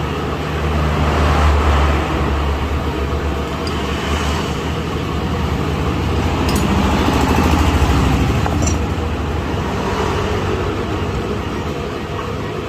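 Motor vehicle engine running steadily, swelling a little in level twice, with a few faint clicks.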